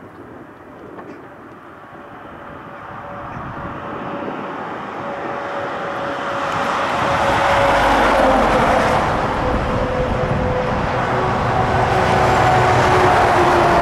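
DAF XF tractor unit pulling a loaded curtainsider trailer along the road, its engine and tyre noise growing steadily louder as it approaches and comes close, with a slowly falling hum in the noise.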